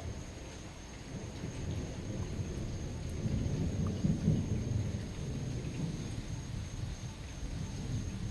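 Thunder rumbling low and long, swelling about halfway through, over a steady hiss of rain.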